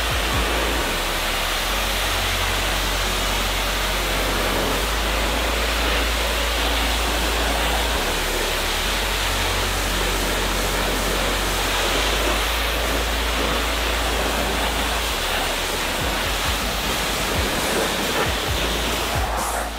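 Pressure washer spraying a jet of water onto a car's painted bumper and quarter panel: a steady, loud hiss of spray.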